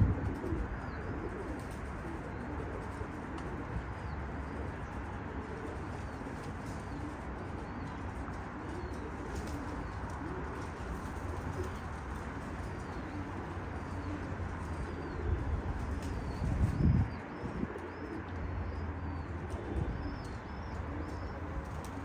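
Domestic pigeons cooing in their lofts, with small birds chirping faintly and high above them. A brief louder rustle, like wing flapping, comes about three-quarters of the way through.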